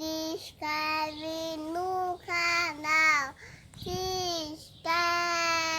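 A child singing a string of long, held notes, about six phrases with short breaks between them, some notes bending up or down in pitch at their ends.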